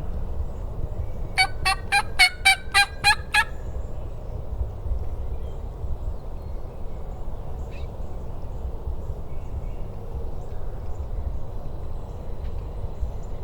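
Wild turkey gobbler gobbling once, loud and close: a rapid rattling run of about nine notes lasting about two seconds, starting a little over a second in.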